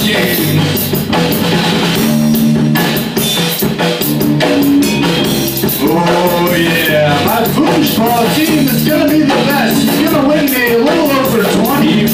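Live band jam: electric bass guitar and drum kit playing together, with a wavering, bending lead melody coming in about halfway through.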